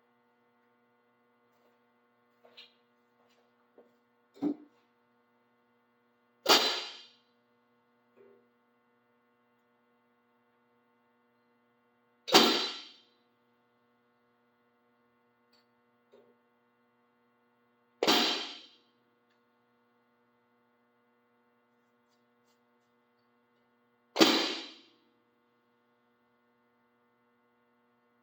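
Hi-hat struck four times, about six seconds apart, each hit a bright sizzle that dies away within a second, over a faint steady electrical hum.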